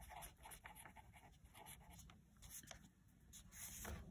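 Faint scratching of a marker pen writing a word on paper, in many short strokes.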